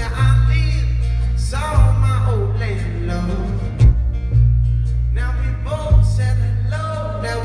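Amplified live band music: a man singing over acoustic guitar and a loud, heavy bass that breaks off briefly about every two seconds.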